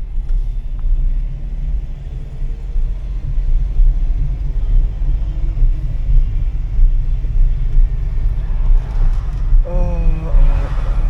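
Steady low rumble of a car in motion: road and wind noise heard from inside the moving car. A voice comes in briefly near the end.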